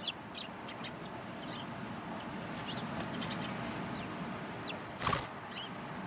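House sparrows chirping: short, high chirps scattered through, over a steady background hiss. A brief loud burst of noise comes about five seconds in.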